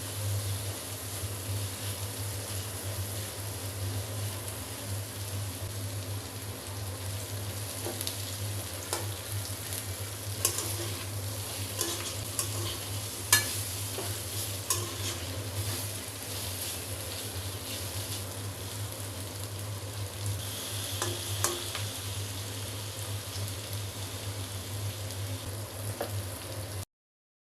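Slices of pointed gourd (potol) frying in oil in a pan: a steady sizzle over a low hum, with a few sharp clicks of a spatula against the pan as they are stirred. The sound cuts off abruptly near the end.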